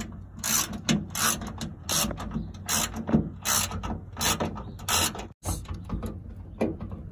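Hand socket ratchet clicking in short bursts, roughly one to two strokes a second, as it turns a bolt on a car's trunk lid.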